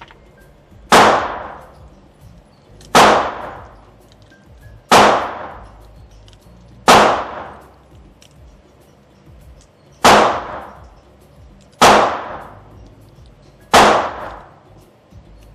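Seven slow, deliberate 9mm pistol shots from a Canik TTI Combat, each a sharp report with a ringing tail, about two seconds apart with a slightly longer pause in the middle.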